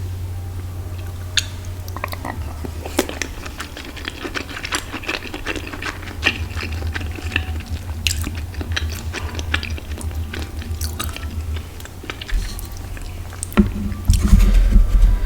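Close-miked chewing and biting, a run of small crunching clicks over a steady low hum, with a louder knock near the end.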